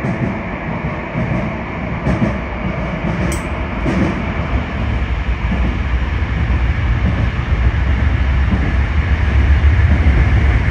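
Yokohama Blue Line subway train pulling out and picking up speed into the tunnel, heard from inside the front car: a steady running rumble that grows louder from about halfway through, with a few short clicks of the wheels over the rails about two to four seconds in.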